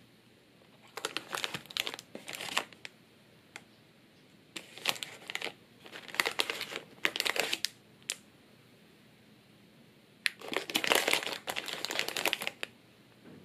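Crinkling of packaging being handled, in four separate bursts of a second or two each, the longest near the end.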